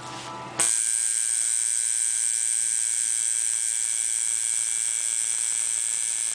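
Electric tattoo machine switched on about half a second in, then buzzing steadily as the needle works the skin.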